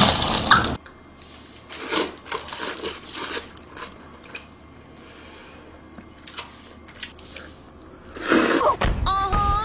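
Close-miked eating sounds: wet chewing, smacking and slurping, loud at first and then as scattered small clicks and smacks. Music comes in near the end.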